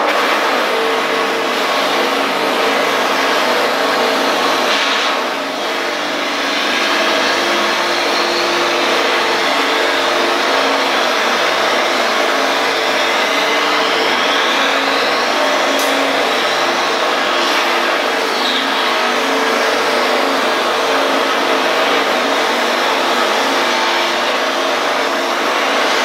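Homemade dowel-making machine running under load: two electric motors drive a cutter head that shaves a wooden stick round while a half-horsepower gearbox motor pulls the stick through. A loud, steady whirring with a constant hum, dipping briefly about five seconds in.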